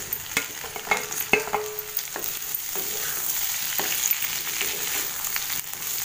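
Chopped onions and tomatoes sliding off a steel plate into hot oil in a kadai, with clattering and scraping in the first couple of seconds, then sizzling steadily as a spatula stirs them, with occasional scrapes against the pan.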